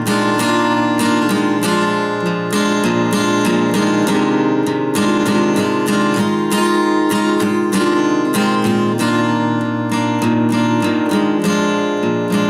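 Acoustic guitar strummed in a steady rhythm, chords ringing in an improvised instrumental.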